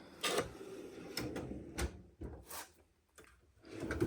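Metal tool chest drawers sliding on their runners, with several short knocks and rattles as drawers are closed and opened.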